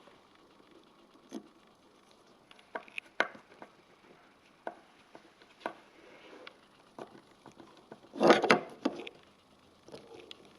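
Scattered small clicks and taps of a Phillips screwdriver and a small plastic case being handled while self-tapping screws are driven into the plastic, with a brief louder clatter about eight seconds in.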